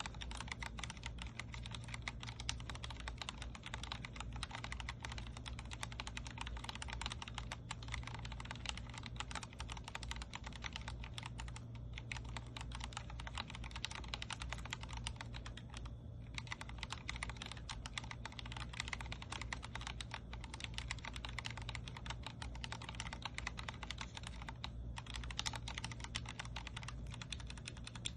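Fast, continuous typing on a Vortex Core 40% mechanical keyboard with Cherry MX Speed Silver linear switches: a dense stream of key clacks with short pauses now and then. A steady low hum sits underneath.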